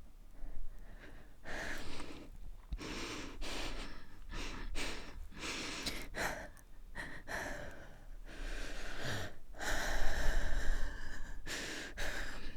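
A woman breathing and sighing: a run of short breathy exhales and inhales one after another, the longest and loudest about ten seconds in.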